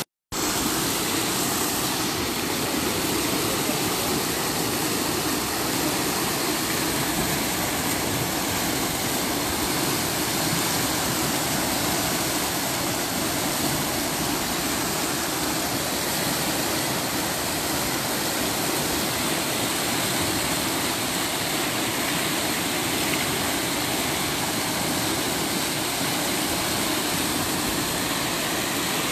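Surma River floodwater rushing through a breached dike in a steady, loud roar of turbulent water. The sound cuts out for a split second right at the start.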